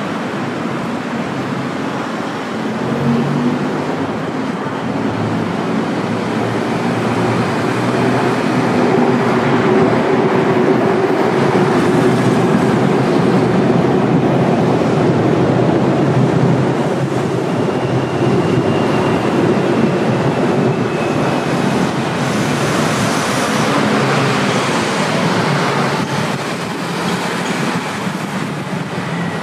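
An elevated metro train, a Bangkok BTS Skytrain, running along the viaduct overhead. Its rumble swells over the first few seconds, stays loud through the middle with a faint whine, then eases off near the end. Steady road traffic sounds lie beneath it.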